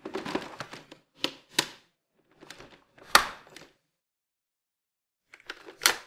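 Hard plastic clicks, knocks and rattles from a Dyson 360 Vis Nav robot vacuum's bin and cyclone assembly and its top cover being handled and snapped into place. The loudest click comes a little after three seconds in, and another sharp one just before the end.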